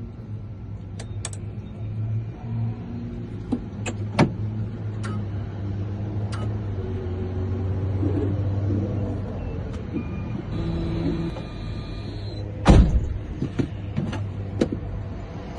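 Electronic key-cutting machine running as it cuts a key blank to the decoded cuts: a steady motor hum with scattered sharp clicks and a loud knock near the end.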